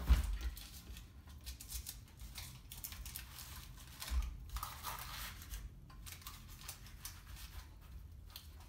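Baking paper rustling and crinkling as dough on it is pulled onto and settled on a metal baking tray, with a sharp knock right at the start and a soft bump about four seconds in.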